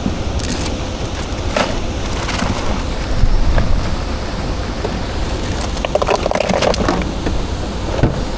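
Steady rumble of wind and water on the microphone, with scattered clicks and knocks, a cluster of them about two thirds of the way through.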